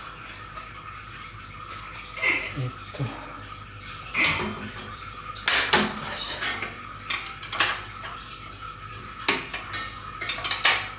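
Metal spanner clinking and scraping against a bicycle's rear axle nut and dropout as the nut is worked loose to take the rear wheel off: a string of separate, irregular metallic clinks and short rattles.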